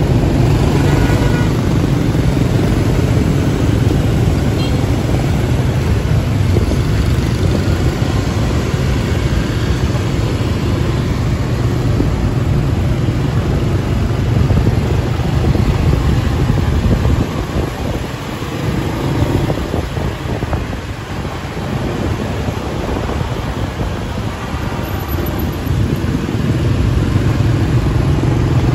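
Dense motorbike and scooter traffic moving off together: many small engines running close by, with a steady low rumble from the motorbike being ridden. The sound eases a little past the middle, then builds again near the end.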